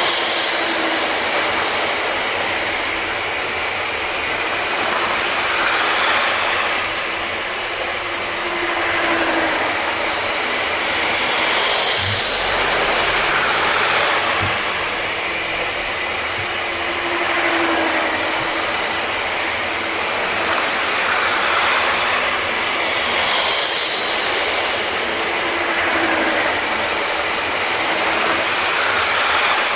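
00 gauge model trains running on sectional track, their small electric motors whirring and wheels rattling over the rail joints. The sound swells each time a train passes close, about every six seconds, with a faint motor whine rising and falling on each pass.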